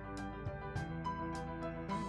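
Background music: a soft instrumental track of sustained notes with light, regular ticks on top.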